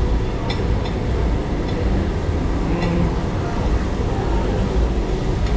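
Steady low rumble of the overhead exhaust vent above a tabletop barbecue grill, with a few light clicks of chopsticks and tongs.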